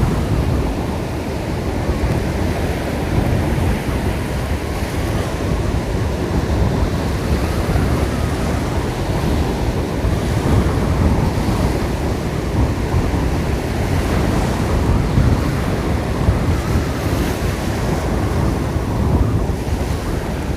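Black Sea surf washing onto the shore in strong wind, with wind rumbling on the microphone. Steady noise that swells and eases with the waves.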